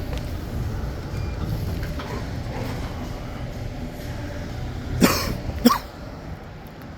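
A person coughs twice, about half a second apart, over a steady low rumble.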